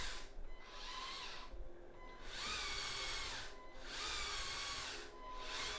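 Small electric motors of a Lego gantry crane driving the trolley and hoist in several short runs, each about a second long, with a faint whine that rises as the motor starts and falls as it stops.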